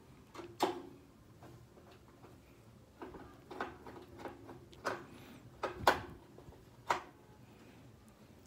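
A handful of sharp, irregularly spaced clicks and taps from a screwdriver, screws and wire connectors being handled against a gas water heater's metal casing and valve during reassembly; the loudest tap comes about six seconds in.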